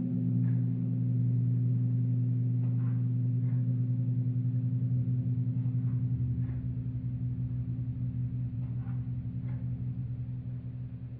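A low, steady ringing drone on one unchanging pitch with a slight wavering beat, slowly fading away over the last several seconds, with a few faint ticks.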